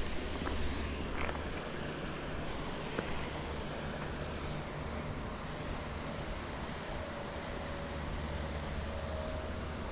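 Steady rush of a waterfall, with an insect chirping high above it in a regular rhythm, a few chirps a second.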